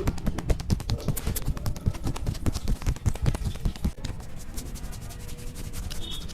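Hands tapping and slapping rapidly on a person's head in a percussive head massage, several quick thuds a second, going softer and closer together about four seconds in.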